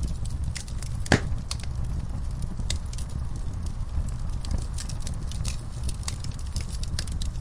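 Fire in a fireplace crackling, with a steady scatter of small pops over a low, even rumble. One louder pop comes about a second in.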